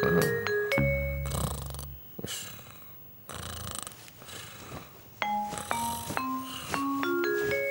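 Cartoon snoring sound effect from a sleeping donkey: low snores near the start and again around the middle. Short plinking mallet-instrument notes of the background music sound at the start and from about two-thirds of the way through, stepping up and down in pitch.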